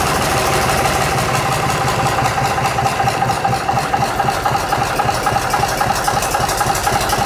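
Gardner 3LW three-cylinder marine diesel running at a steady idle, with an even, rhythmic beat.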